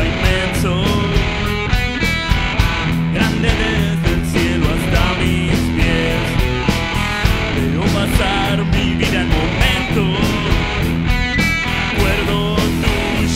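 Rock music: electric guitar over a steady drum beat.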